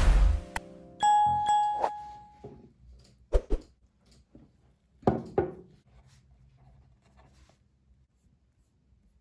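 Piano music ends, then a single clear ding rings out about a second in and fades, followed by two pairs of light knocks.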